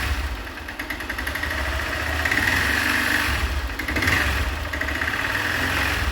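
Honda CG 160 Start single-cylinder engine running with a loud rattling clatter and knock, swelling a few times as the throttle is opened a little. The noise is typical of valves out of adjustment and piston skirt slap; the piston was later found loose in a worn cylinder.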